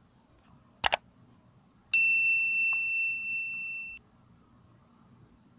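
A quick double mouse click, then about a second later a single bell-like ding that rings for about two seconds and cuts off suddenly: the click and notification-bell sound effects of a subscribe-button animation.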